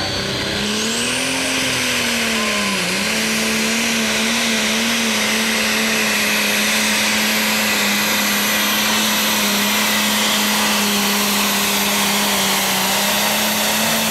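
John Deere 10,000 lb Pro Stock pulling tractor's big single-turbo diesel running flat out under load on a pull. The turbo whine climbs steeply in the first second. The engine note rises, dips briefly about three seconds in, then holds steady.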